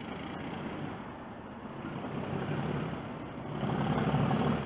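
Class 37 and Class 31 diesel locomotives shunting a rake of coaches, a low engine and wheel rumble that swells twice and is loudest near the end, with a thin high rising squeal near the end.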